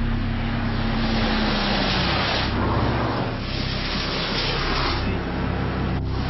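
Cars driving fast on a soaking wet road: a steady hiss of tyre spray that swells and fades, over low engine noise.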